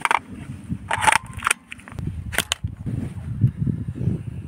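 Sharp clicks and knocks from a 3D-printed airsoft underbarrel grenade launcher being handled and readied with a Kick shell grenade, with wind rumbling on the microphone.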